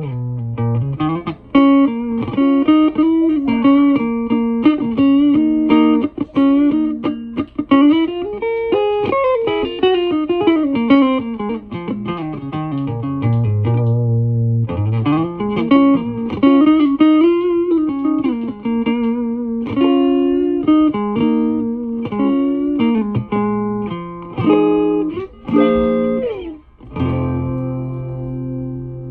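Electric guitar played through a freshly rebuilt 1966 Fender Champ tube amp: a run of single-note lines with notes sliding up and down, ending on sustained low notes. The tone is fairly clear, showing that the amp works after the rebuild.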